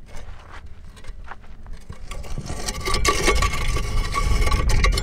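A vehicle's low rumble with a rough scraping noise that grows louder from about halfway through.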